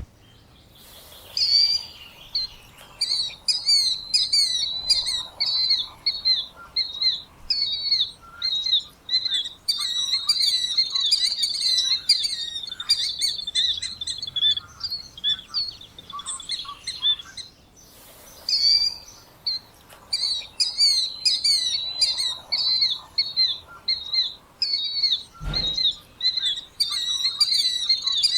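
Killdeer calling: a rapid series of high, repeated calls, several a second, broken by a short pause about seventeen seconds in. A brief low thump comes about twenty-five seconds in.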